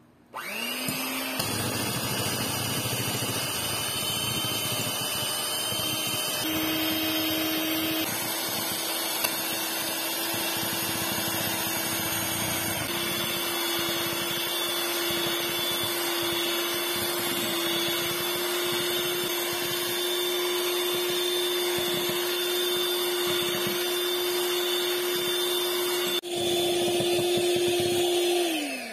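Electric hand mixer beating cream cheese batter in a glass bowl: the motor spins up with a rising whine, runs at a steady pitch throughout, and winds down with a falling whine at the end.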